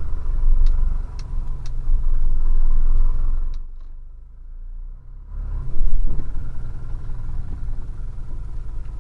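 Delivery truck's engine running as it drives off, heard from inside the cab, with a few sharp ticks about half a second apart in the first two seconds. The sound dips briefly midway, then the engine swells up again.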